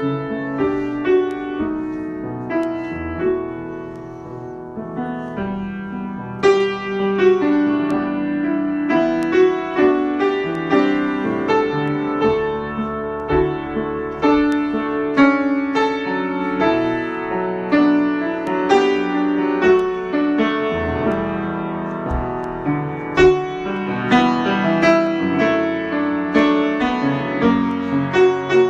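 Solo piano being improvised: struck chords and melody notes that ring and fade. It plays softly for a few seconds, then grows fuller and louder from about six seconds in.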